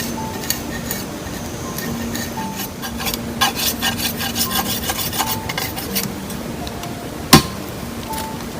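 Hand work with rubbing and scraping, a run of clicks and scrapes in the middle, and one sharp, loud knock about seven seconds in, over steady background music.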